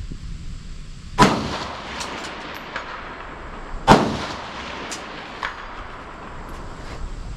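Two rifle shots about two and a half seconds apart, each with a trailing echo, with fainter sharp clicks in between and after.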